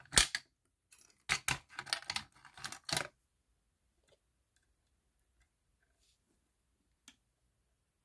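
A bunch of keys jingling and clicking as a key is fitted into the key lock of a Simplex fire alarm pull station. It lasts about three seconds, with a faint tick about seven seconds in.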